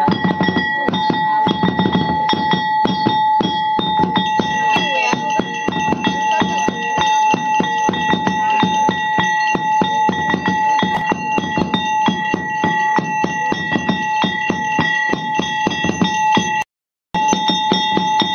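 Ritual bell rung rapidly and continuously, a steady ringing over a dense, even beat, accompanying a Garhwali deity dance. The sound cuts out for a moment near the end.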